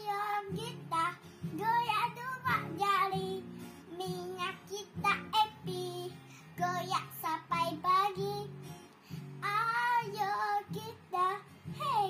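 A young girl singing a melody, accompanied by an acoustic guitar strummed in steady chords.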